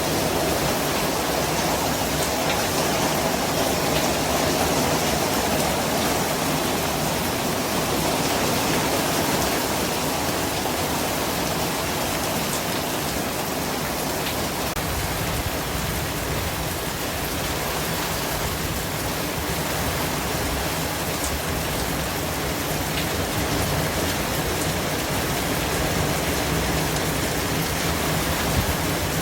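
Steady white noise: an even, unbroken hiss spread across all pitches.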